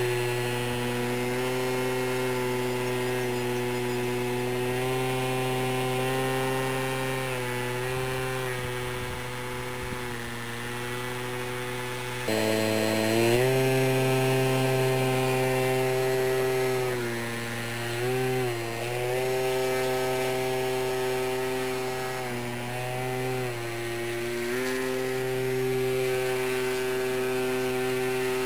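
Motor and propeller of a small foam RC plane hovering in a prop hang, a steady buzzing whine. About twelve seconds in it steps up louder and higher, and it dips briefly in pitch twice, around eighteen and twenty-three seconds, as the throttle is worked to hold the hover.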